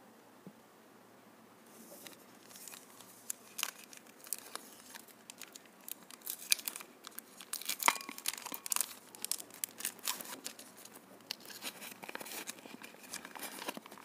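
A chocolate bar's foil wrapper being torn open and peeled back by hand: dense, irregular crinkling and tearing crackles, starting about two seconds in.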